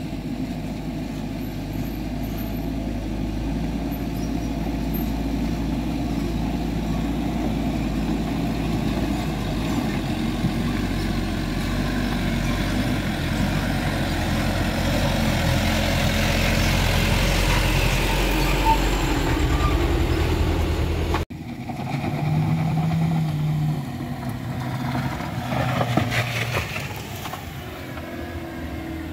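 Heavy truck engine running under load as it climbs, growing steadily louder over about twenty seconds. It cuts off abruptly, then a different vehicle's engine is heard.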